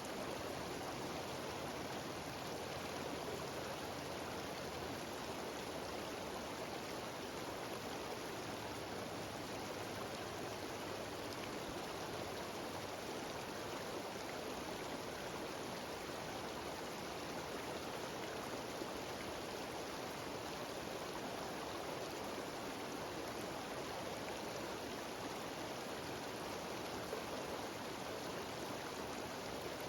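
Steady rush of a mountain stream cascading over small waterfalls, with no breaks.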